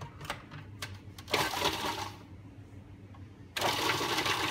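Food processor: a few plastic clicks as the pusher and lid are seated, a short burst of noise, then about three and a half seconds in the motor starts and runs steadily, chopping herbs, garlic and oil into a herb rub.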